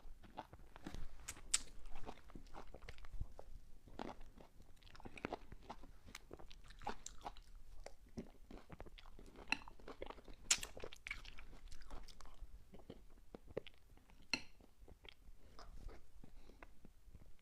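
Close-up mouth sounds of a person eating whipped cream cake: irregular wet chewing, smacks and small clicks.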